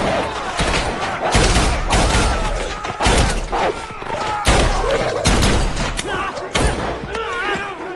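Film fight soundtrack: a dense run of sharp gunshots and heavy hits, one after another, with strained vocal sounds between them.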